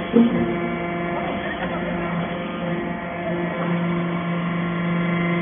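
Compacting and baling machine for steel wire chips running with a steady mechanical hum, with a short knock just after the start.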